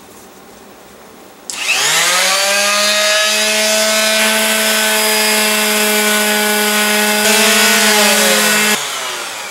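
Ryobi electric orbital sander switched on about a second and a half in, its motor whine rising to speed, then running steadily as it sands a plywood fin. Near the end it is switched off and winds down with falling pitch.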